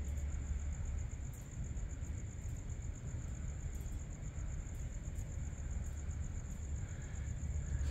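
Crickets trilling steadily at night, a continuous high pulsing chirr, over a low steady rumble.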